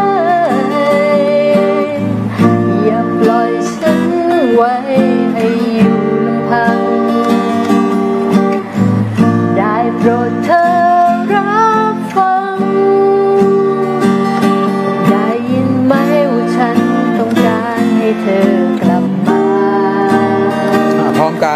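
Acoustic guitar strummed steadily, with a voice singing a wavering melody along with it.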